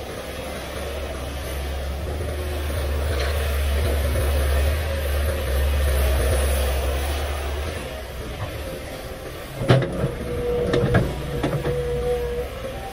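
Komatsu PC500LC hydraulic excavator working: its diesel engine gives a deep steady drone that swells over the first several seconds as the arm swings, then eases off. About ten seconds in there is a cluster of sharp knocks, with a thin steady whine.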